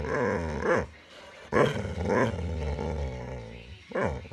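Boxer dog grumbling and growl-whining in long, drawn-out vocalizations that waver up and down in pitch, in two bouts with a short break about a second in: a dog throwing a vocal tantrum.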